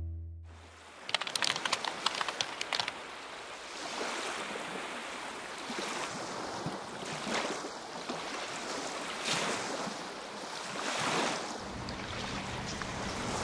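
Sea waves breaking and washing up on the shore, the surf swelling and falling every couple of seconds, with a crackling patch about a second in. Music fades out at the very start, and a steady low hum comes in near the end.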